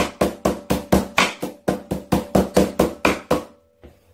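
Wooden rolling pin beating beef steak through a plastic bag on a stone worktop to flatten it: quick, regular thuds, about four a second, that stop near the end.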